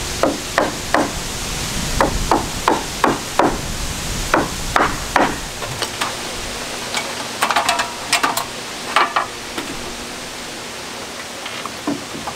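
Hammer driving nails into rough-cut lumber rafters: sharp blows in quick runs of three to five, about three a second, with short pauses between runs. About halfway through comes a denser cluster of lighter knocks and rattles, then a few faint taps near the end.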